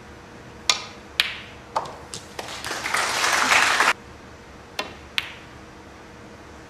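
Snooker balls clicking as the cue strikes the cue ball and the balls collide, then a short burst of audience applause that cuts off suddenly, followed by two more ball clicks.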